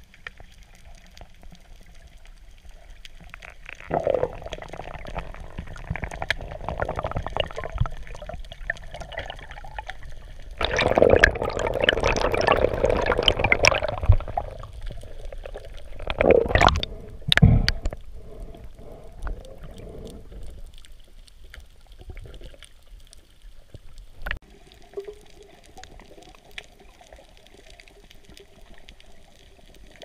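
Water sloshing and gurgling around an underwater camera, in loud bursts from about four to fourteen seconds in. Two sharp knocks come near the seventeen-second mark, then the water noise settles lower.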